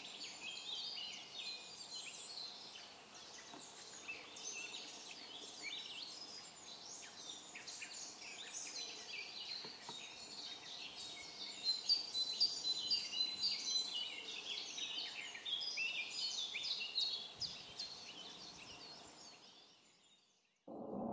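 Small birds chirping and singing in a busy chorus of short high notes, a little louder past the middle, then dying away near the end. A rising whoosh starts just before the end.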